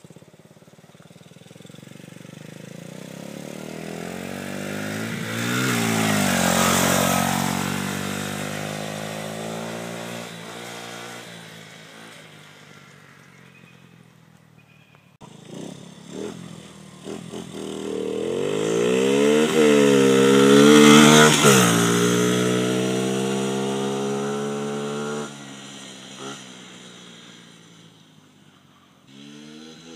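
Derestricted Skyteam Monkey mini bike's small single-cylinder four-stroke engine running under throttle as the bike rides past twice. Each pass grows louder as it approaches, its pitch drops as it goes by, and then it fades into the distance.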